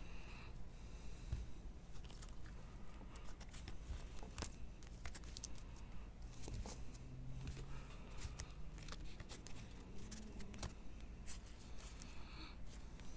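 Trading cards being handled and set down on stacks: light, scattered clicks and rustles of card stock.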